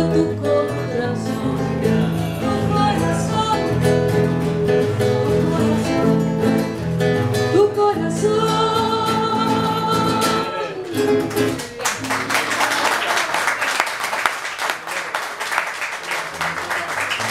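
A woman sings the last lines of a milonga over a classical guitar, ending on a long held note about ten seconds in. The music stops and audience applause follows.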